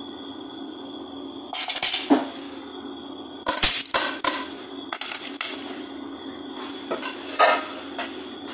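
Wooden spatula scraping and knocking against the sides of an aluminium pot of simmering curry, in several short bursts of clatter, over a steady low hum.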